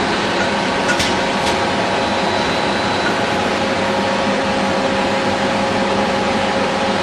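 Lipstick filling and cooling machine running: a steady mechanical hum with several constant tones, and two short sharp clicks about a second in.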